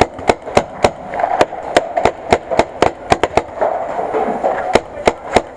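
Paintball markers firing nearby, a steady string of sharp pops at about three a second.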